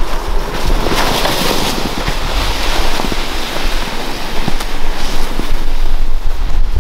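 Red plastic sled sliding down packed, rutted snow, a steady rushing scrape with a few light bumps, under a low rumble of wind buffeting the microphone.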